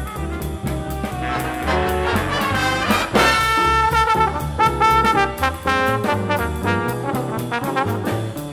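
Jazz big band playing live, with a trombone soloing out front over the band, bass and drums. About three seconds in the band swells with long, loud held chords.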